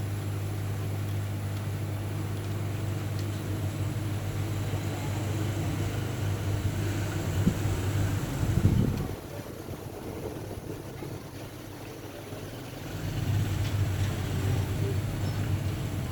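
A steady low engine hum. A louder knock comes at about eight and a half seconds, then the hum drops away for a few seconds and returns near the end.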